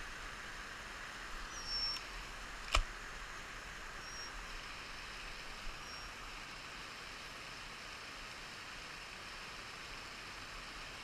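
Steady outdoor background hiss on an open hillside. It is broken by one sharp click about three seconds in and a few faint, short, high chirps a little later.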